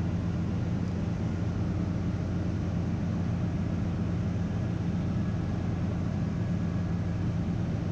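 Steady drone of ship's engine-room machinery running, a low hum with several steady tones, heard from inside the main engine's crankcase.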